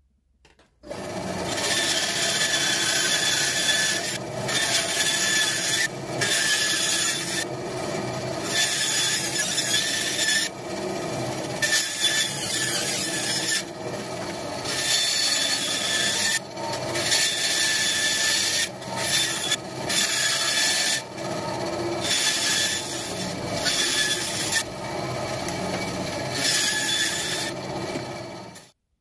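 Bandsaw cutting a round wooden blank, a steady blade whine over the rasp of the cut. The sound dips briefly and comes back every second or two as the piece is guided through the blade.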